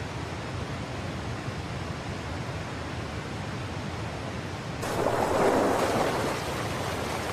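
Steady rush of white water from river rapids and a waterfall. It turns suddenly louder about five seconds in, then eases a little a second later.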